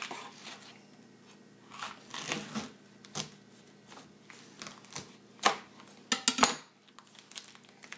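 Kitchen knife slicing lengthwise through the fibrous husk of a raw Moso bamboo shoot on a plastic cutting board: scattered crunchy, tearing cuts, loudest in a cluster of sharp strokes a little past the middle as the shoot splits in two.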